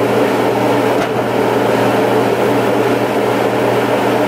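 Steady machine hum over an even hiss, while a frying pan of ground pork and diced potatoes cooks in its added water at low to medium heat.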